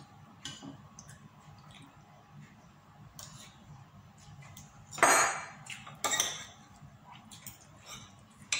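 Metal fork and spoon clinking and scraping against a ceramic plate while eating, a few scattered sharp clinks with a louder, longer noise about five seconds in.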